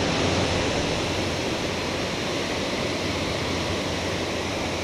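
Steady rushing of a waterfall pouring into a pool, an even wash of noise with no breaks.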